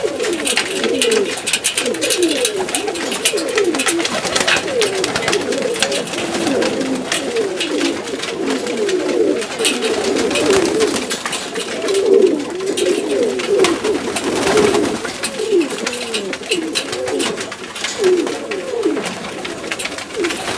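A flock of Macedonian Donek pigeons cooing together, many overlapping coos repeating without a break, with scattered sharp clicks and rustles among them.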